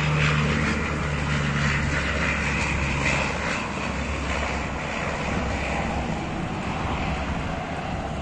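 Canadair water bomber's twin propeller engines droning as it flies low over the lake, the sound slowly fading as the plane moves away, its deeper engine tones dropping out about halfway through.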